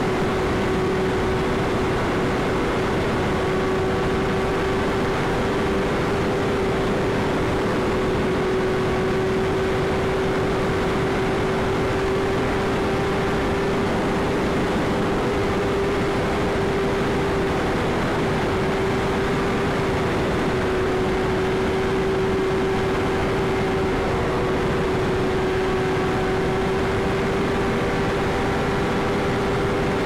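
BMW S1000RR's inline-four engine running at steady revs while cruising, its note holding a near-constant pitch under loud wind rush.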